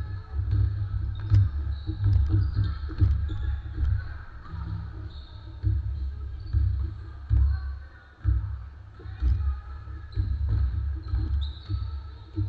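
Basketball game on a hardwood court: a ball bouncing, sneakers squeaking and players' voices, over a heavy low rumble.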